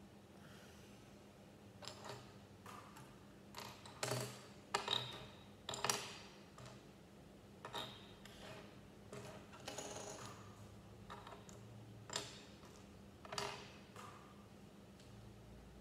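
Small plastic Lego pieces clicking and clattering as they are picked from a pile on a wooden table and pressed together: about a dozen sharp, irregular clicks, the loudest cluster a few seconds in.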